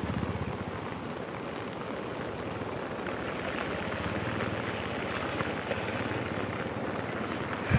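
Steady rushing of a swollen, muddy floodwater river in spate. A brief low thump comes near the end.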